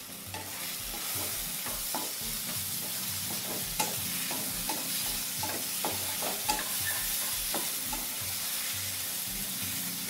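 A spatula stirring and scraping sabudana khichdi around a kadai, with an irregular tap of the spatula against the pan every second or so, over a steady frying sizzle.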